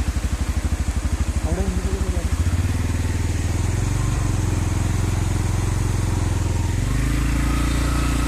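Motorcycle engine running on the road: a low pulsing beat at first, settling into a steady drone, then rising in pitch about seven seconds in as the bike picks up speed.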